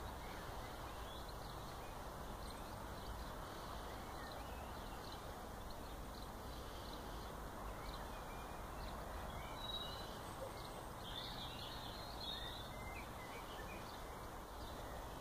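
Steady outdoor background noise with a few faint, high bird chirps about two-thirds of the way through.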